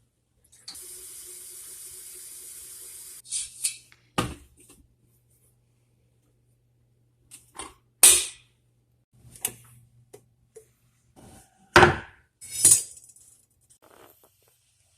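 Water running from a tap for about two and a half seconds, then several separate knocks and clatters of kitchenware, the loudest about eight and twelve seconds in.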